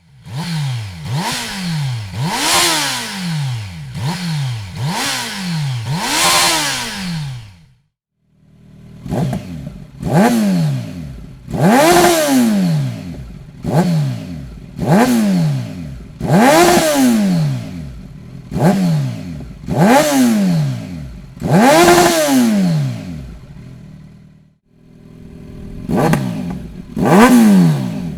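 Kawasaki Z900's inline-four engine with its throttle blipped over and over, each rev rising sharply and dropping back, about one every second and a half. The revving comes in three runs with short breaks between them.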